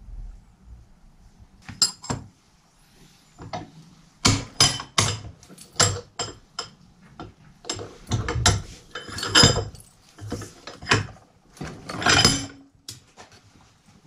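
Metal parts of a Shimano Nexus 7-speed hub's internal gear unit clinking and knocking as they are handled by hand. The clinks are sharp and irregular, about a dozen of them, with a denser cluster in the middle.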